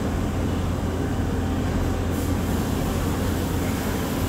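Steady low hum and rumble of running shop machinery, even throughout, with no distinct clicks or knocks.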